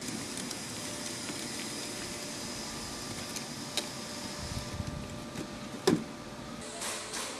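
Woodworking machinery running steadily, with scattered clicks and one sharp knock about six seconds in.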